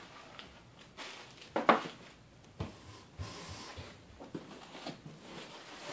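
Light handling noises from a 3D printer kit's boxes and bagged parts being moved on a table: scattered soft rustles and a few small knocks, the sharpest about one and a half seconds in.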